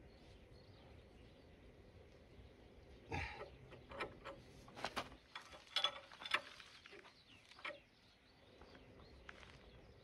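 A scattering of short, irregular metallic clicks and knocks as a spanner and small parts are handled at a mini excavator's crawler track frame, starting about three seconds in and dying away a few seconds later.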